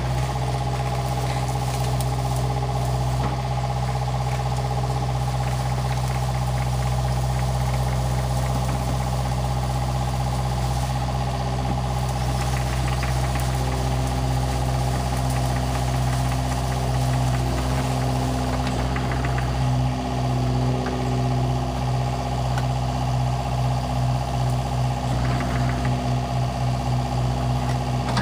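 Diesel engine of a John Deere 50G mini excavator running steadily under work, with higher tones above the engine hum that shift in pitch as the arm and bucket move. In the last third the engine note takes on a rhythmic pulse.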